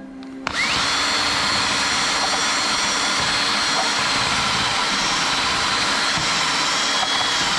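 Electric drill with a wire cup brush spinning up about half a second in, then running steadily against a corroded bolt head, scrubbing away the rust. A high whine sits over the scratching of the wire on the metal.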